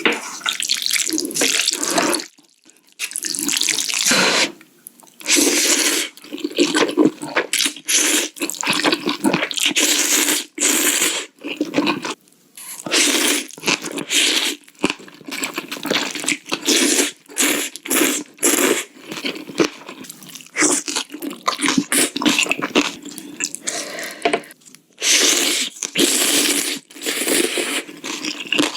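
A person eating spicy noodle soup, slurping noodles and broth in repeated wet slurps of a second or two each, with short pauses in between.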